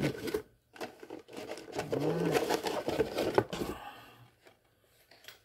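Handling noise of a 1:10 RC buggy being pulled out of its cardboard box: scraping, rustling and clicking of cardboard and the car's plastic parts, with a short low murmur about two seconds in. It dies away to near quiet for the last second or so.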